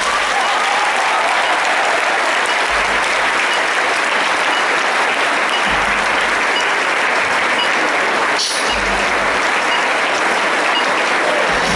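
Audience clapping, a dense, steady applause that keeps on throughout.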